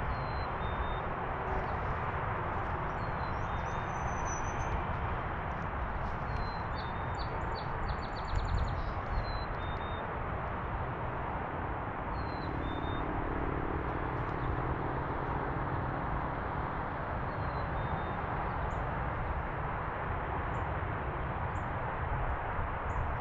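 Songbirds calling: short, high whistled notes every second or few, and a quick trill of evenly spaced notes about seven seconds in, over a steady rushing background noise.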